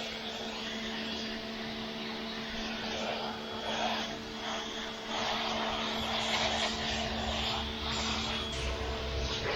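Pressure washer running steadily, its motor drone under the hiss of the water spray hitting vinyl house siding, the spray noise swelling and easing as the wand moves.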